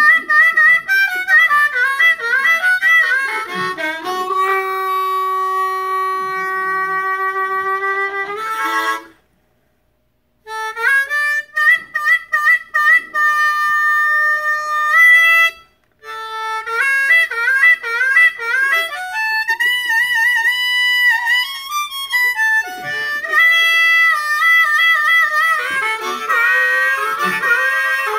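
Solo harmonica playing blues: quick runs of bent notes, a long held note about a third of the way through, and wavering notes later on, with two short breaks in the sound.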